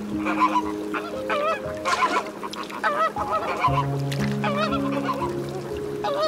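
A flock of flamingos honking: goose-like calls with a wavering pitch, several every second, overlapping. Soft background music with long held notes runs underneath.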